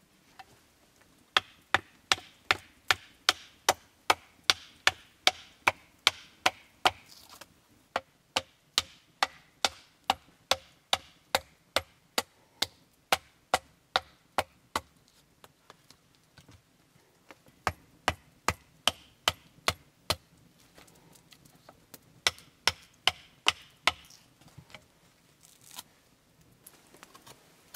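Knife blade chopping into a linden-wood branch held upright, sharp woody knocks about three a second, in three runs with short pauses between them, as the spoon blank is roughed out.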